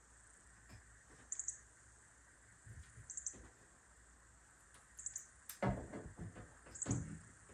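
Faint knocks and taps of cabinets and shims being handled and fitted, louder in a cluster about two-thirds of the way through. A faint, short high chirp repeats about every two seconds.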